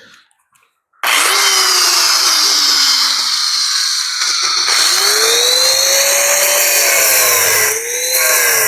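Angle grinder starting about a second in and cutting into a washing machine motor to free its copper coil. Its loud whine sags and recovers as the disc bites, with a brief drop near the end.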